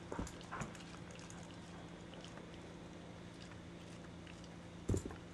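Quiet room with a few faint taps in the first second, then one dull thump near the end.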